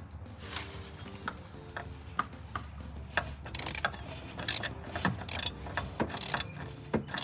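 Ratchet wrench loosening an oil filter. A few scattered clicks come first, then from about three seconds in, short runs of rapid clicking, one run per stroke.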